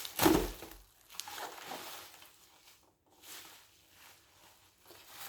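Handling noises: a loud bump and rustle near the start, then softer intermittent rustling as the robot vacuum and its packaging are moved about.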